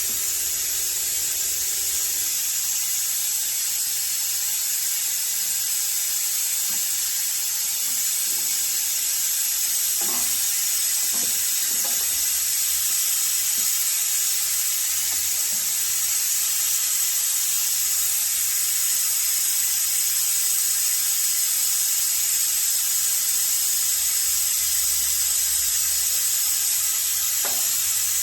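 A steady high-pitched hiss, with a few faint knocks about ten seconds in and again near the end.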